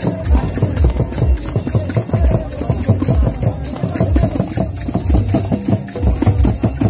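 Santali dong dance music played live on mandar (tumdak) hand drums: a steady rhythm of deep drum beats with sharp higher strokes over them.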